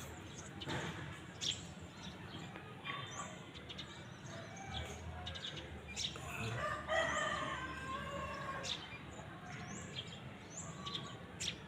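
Birds calling: a longer wavering call about halfway through, and short high chirps that repeat throughout.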